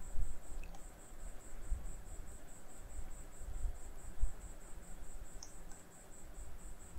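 A steady high-pitched chirping, evenly pulsed at about five chirps a second, with a few soft low thumps, the strongest at the very start and another about four seconds in.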